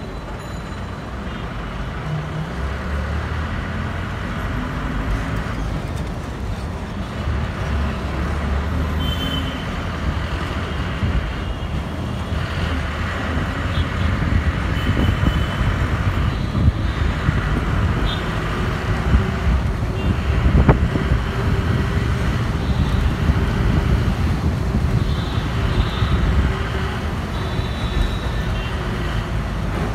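City street traffic: a continuous rumble of vehicle engines and road noise, with a single sharp knock about two-thirds of the way through.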